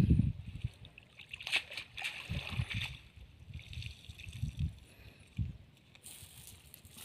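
Water splashing and sloshing as a cast net is hauled by hand out of shallow, muddy water, with a few dull thumps as the wet net is gathered in.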